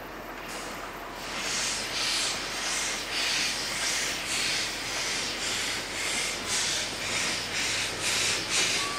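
Garratt steam locomotive G42 working, its exhaust chuffing steadily about twice a second, coming in about a second in.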